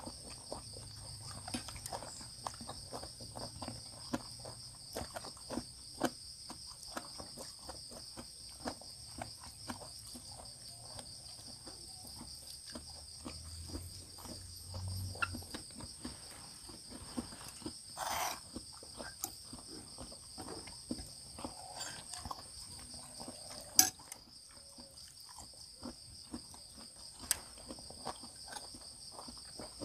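A chorus of night insects trilling steadily at two high pitches, with scattered soft clicks and taps from eating and a sharper click about 24 seconds in.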